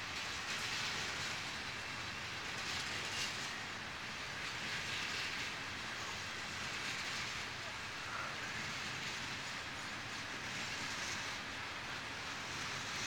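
Loaded Norfolk Southern coal train's hopper cars rolling past steadily: an even, continuous wash of wheel and rail noise with slow gentle swells.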